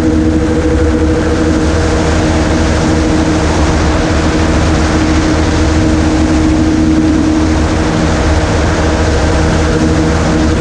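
Float-equipped ultralight gyroplane's engine and propeller running steadily while it taxis on the water, a loud, even drone with a low hum and a couple of held tones.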